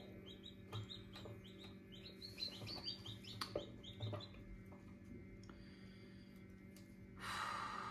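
Copper Marans chick peeping faintly from inside its part-opened shell: a quick run of short, high, falling peeps, about three a second, that stops about four seconds in. A short soft hiss near the end.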